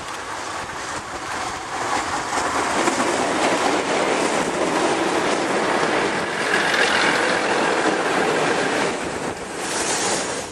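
A diesel passenger railcar set passing close by. Its engines and wheels on the rails grow louder as it approaches, stay loud while the cars go past, and are cut off abruptly at the end.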